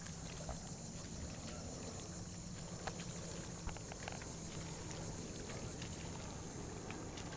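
Low steady hum of an idling boat motor, with a steady high hiss over it and a few faint clicks.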